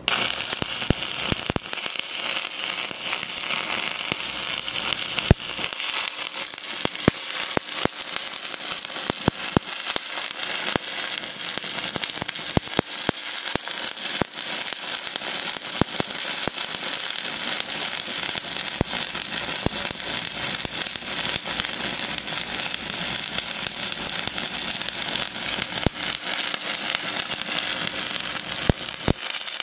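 Stick-welding (SMAW) arc crackling steadily with frequent sharp pops, struck suddenly at the start: a 7018 rod running the cap pass on steel pipe.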